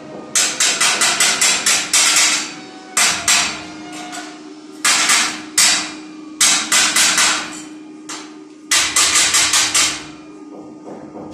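Hammer blows on a steel tube gate frame, metal on metal, in quick runs of sharp strikes: about nine in a row at the start, then a couple of pairs and two more short runs, with pauses between them.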